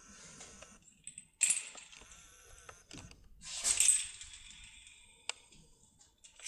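Metal clinking and scraping of a locksmith's cylinder puller and lock parts being handled, with two louder ringing metallic scrapes, about one and a half and four seconds in, and a sharp click a little after five seconds.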